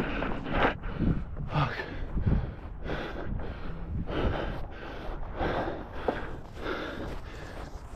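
A person breathing hard and fast while hurrying on foot, about two heavy breaths a second, with footsteps.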